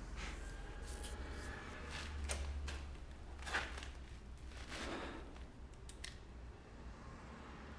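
Revolver being handled in the hands, giving a few scattered metallic clicks, over a steady low hum.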